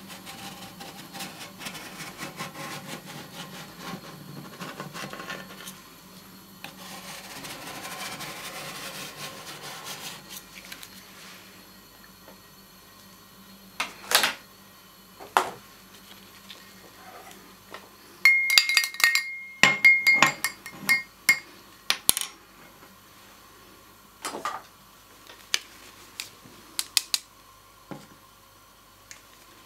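Metal spatulas scraping frozen curd-dessert ice cream off an ice cream cold plate and rolling it up, a dense rasping scrape for the first ten seconds or so. Then scattered taps and clinks of metal tools on the plate, with a cluster of sharp ringing clinks about two-thirds of the way through.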